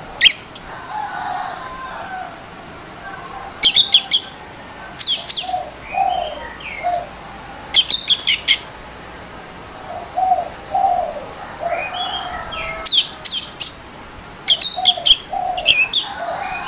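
Orange-headed thrush giving harsh, rasping calls: short rapid clusters of three to five sharp notes, about six clusters a few seconds apart, with soft, lower warbled notes in between.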